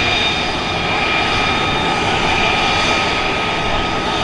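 Military aircraft engines running steadily with a loud rush and a constant high-pitched whine made of several steady tones.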